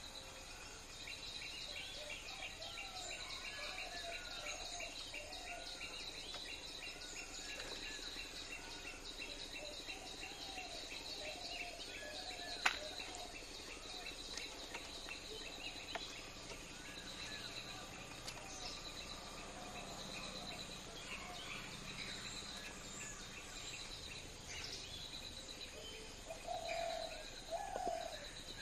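Outdoor bird chorus: many short bird chirps and calls over a steady, high-pitched pulsing trill, with one sharp click about halfway through and a couple of louder calls near the end.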